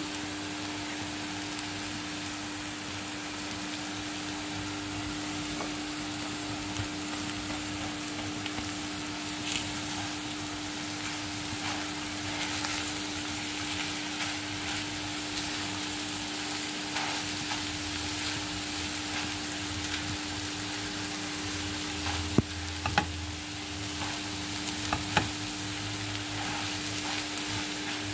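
Shrimp and scrambled egg with spring onion sizzling steadily in a frying pan, while a plastic slotted spatula stirs and scrapes through them. A few sharp knocks of the spatula against the pan come about two-thirds of the way through.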